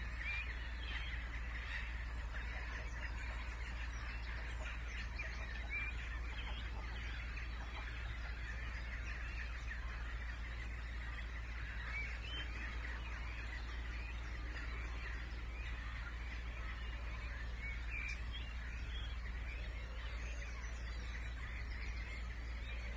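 Dense chorus of many wetland birds calling at once, a continuous chatter of short calls, over a steady low hum of distant background noise.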